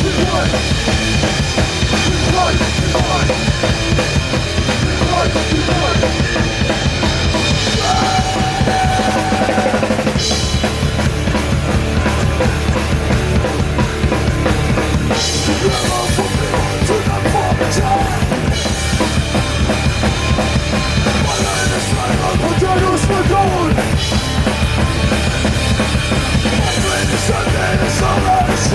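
Live band music, with a drum kit prominent: bass drum and snare hits over sustained low bass notes.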